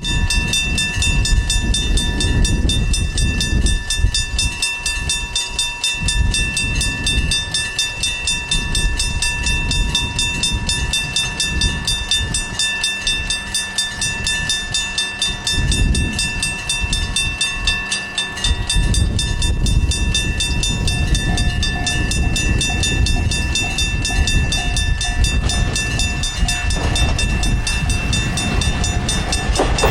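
Japanese level-crossing alarm ringing throughout with a fast, even repeating tone, over the low rumble and clatter of a KiHa 40 diesel railcar on the line.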